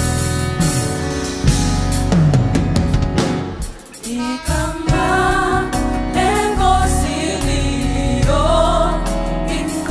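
Gospel choir song with a backing band. The band plays alone at first, drops out briefly about four seconds in, and then the choir's singing comes in over it.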